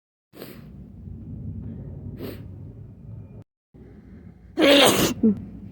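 A person sneezing: two quick gasping in-breaths, then one loud voiced sneeze near the end.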